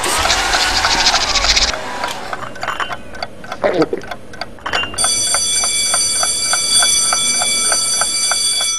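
A clock ticking, about four ticks a second. About halfway through, a steady high-pitched ringing joins in, and both cut off suddenly at the end.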